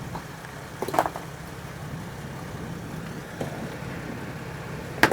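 A rock-crawling 4x4's engine idling steadily, with a few sharp knocks over it, the loudest just before the end.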